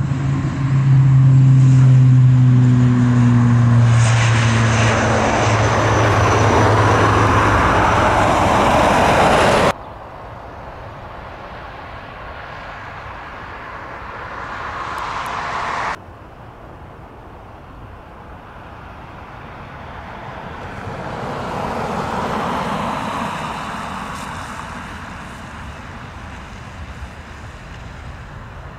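ATR 72 twin turboprop on its takeoff roll: a loud, steady drone from the engines and propellers, dipping slightly in pitch. It cuts off suddenly about ten seconds in. Much quieter aircraft engine noise follows, cuts again, then swells and fades as a Ryanair Boeing 737 jet rolls down the wet runway.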